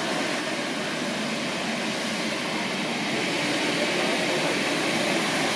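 Blower fan running with a steady, even whoosh.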